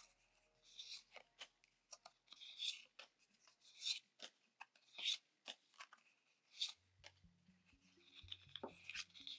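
Pokémon 151 booster pack and cards being handled: a series of brief, faint crinkles and rustles of the foil wrapper and card stock, roughly one a second.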